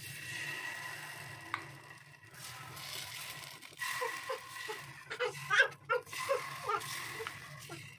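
Steady hiss of sizzling in a paniyaram (appe) pan on a gas stove at medium heat, with a run of short chirping sounds from about halfway in until near the end.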